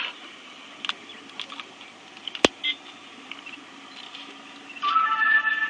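Scattered light clicks and taps of a handheld camera being handled, with one sharp click about halfway. Near the end comes a brief burst with a few steady high tones.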